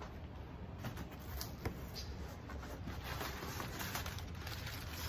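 Crumpled brown kraft packing paper rustling and crinkling as it is pulled out of a cardboard box, with scattered light crackles and one sharper click near the middle.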